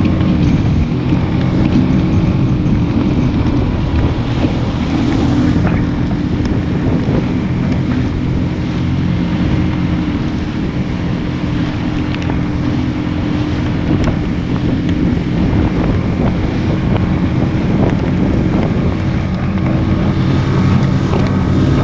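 Outboard motor of a small Craig Cat catamaran running steadily under way, its engine hum holding a near-constant pitch, with wind buffeting the microphone.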